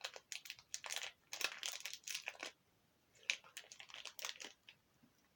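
Hands squeezing and working a stiff slime full of small foam beads: crackling, crunching noises in quick bursts, a dense run for about two and a half seconds, then a short pause and a second run.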